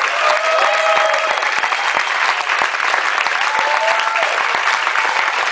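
Audience applauding, a dense steady clatter of many hands clapping, with a few voices calling out over it.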